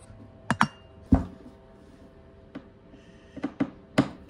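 Sharp clicks and knocks of a hand Torx key and small bolts being worked loose from a Harley-Davidson saddlebag's latch hardware. The bag shifts and knocks as it is handled, loudest with a dull thump about a second in, then scattered clicks with a quick run near the end.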